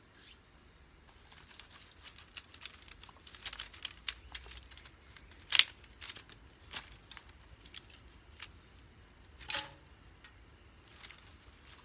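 Dry wood shavings and kindling crackling and rustling as a campfire is got going: a scatter of irregular sharp snaps and crinkles, the loudest about five and a half seconds in and another strong one near ten seconds.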